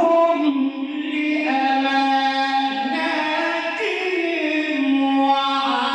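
A man's voice reciting the Quran in melodic, chanted style, holding long drawn-out notes that slide up and down in pitch.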